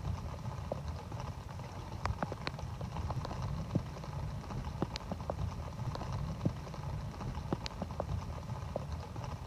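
Water dripping and splashing at irregular intervals into standing floodwater, as sharp ticks over a steady low rumble.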